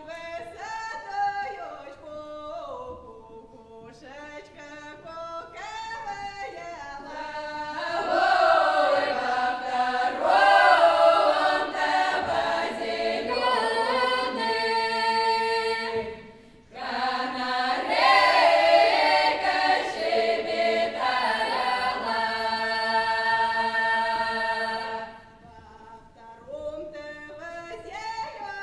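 Folk choir singing a traditional Kuban Cossack song unaccompanied. A few voices sing at first, the full choir comes in louder about eight seconds in, stops briefly in the middle, comes back in, and drops back to a few quieter voices near the end.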